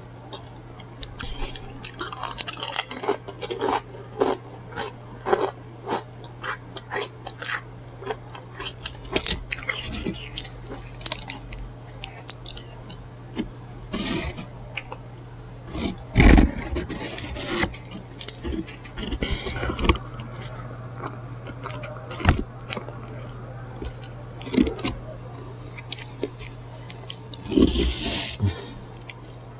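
Close-miked eating: repeated crunching and chewing of food with scraping and crackling, over a low steady hum. A heavier knock comes about halfway through.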